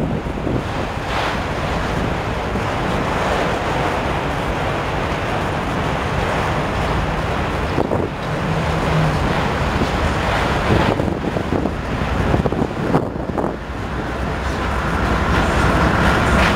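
Freight train rolling past with a steady rumble and rattle of the cars and a few sharp knocks. Around the middle, a pair of mid-train CSX diesel locomotives pass with a short engine drone. Wind buffets the microphone.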